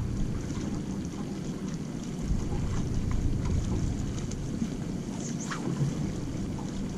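Open-water ambience on a bass boat's bow: a steady low rumble of wind on the microphone and water against the hull, with a few faint clicks about five seconds in.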